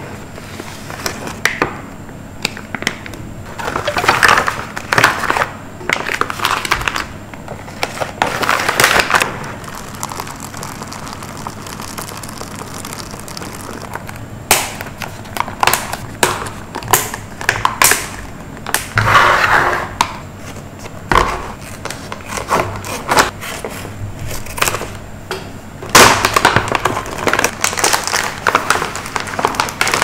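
MRE food packs being unpacked by hand: packaging rustling, crinkling and tearing in irregular bursts, with sharp clicks and knocks in between.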